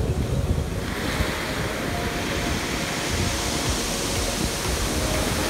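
Ocean surf breaking and washing up over a pebble beach, a steady rush of water whose hiss grows about a second in as the foam runs up the shore.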